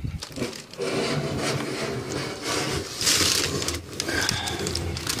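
Fujitsu Siemens Scaleo X PC case rubbing and scraping against the sides of its cardboard shipping box as it is worked out by hand, with crumpled packing paper rustling.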